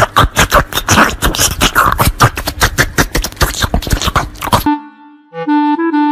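Fast, loud beatboxing beat: a rapid run of sharp clicks and hissing strokes, several a second. It cuts off suddenly near the end, and a melody of clear, held notes takes over.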